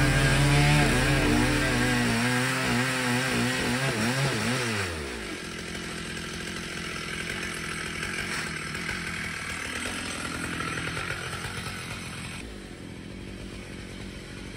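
Stihl MS 881 chainsaw on a chainsaw mill running through an oak log, its pitch wavering, then falling away about five seconds in. A fainter, steadier saw noise follows.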